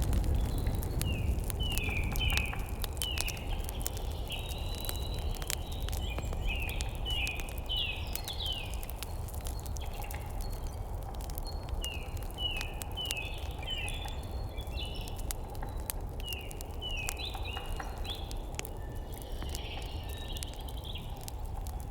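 Songbirds chirping in quick runs of short falling notes, over a wood fire crackling with scattered sharp pops and a low steady rumble underneath.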